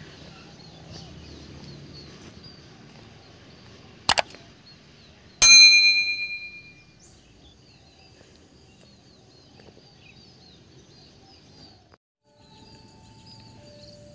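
A quick double click about four seconds in, then a loud bright bell ding that rings out and fades over about a second and a half: the sound effects of a subscribe-and-bell button overlay. Faint bird chirping runs underneath.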